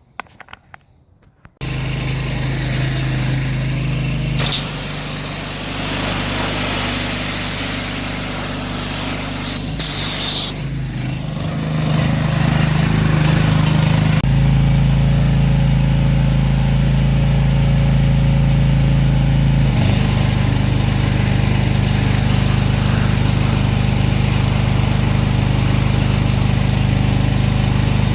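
Pressure washer's gasoline engine running steadily after coming in abruptly, its pitch shifting a few times. A hiss joins it for a few seconds near the middle.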